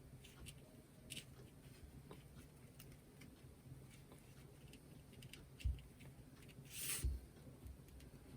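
Faint handling sounds of paper craft materials on a desk: light ticks and taps, a soft thump a little over halfway through, and a brief rustle with a knock near the end.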